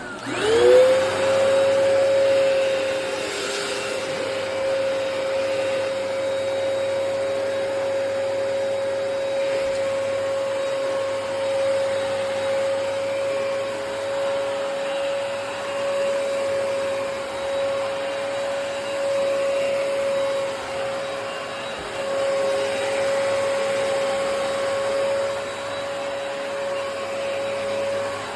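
Hoover PowerDash Pet+ compact carpet cleaner switched on: its motor spins up within about a second and then runs with a steady whine over a rush of air.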